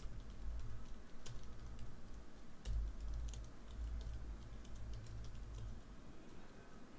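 Typing on a computer keyboard: irregular, light key clicks over a low background rumble.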